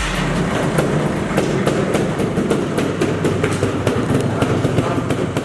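Trials motorcycle engine running in a reverberant hall, with a steady clatter and frequent sharp knocks.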